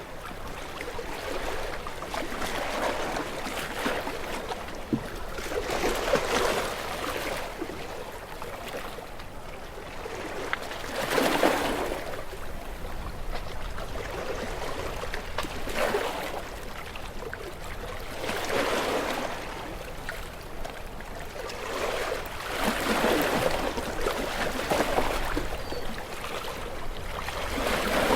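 Gentle waves washing onto a beach, one after another. Each wave is a swell of splashing and hiss every few seconds, with a softer wash running between them.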